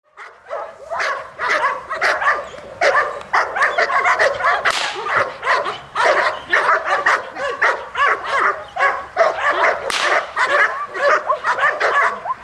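German shepherd barking rapidly and without a break, excited protection-work barking at a man.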